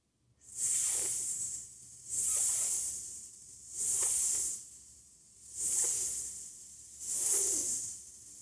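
A woman hissing a sustained "sss" five times in a row, about one every second and a half. Each one swells and then backs off, pressing the air and then letting off while keeping the S going: a breath-control exercise for finding vibrato.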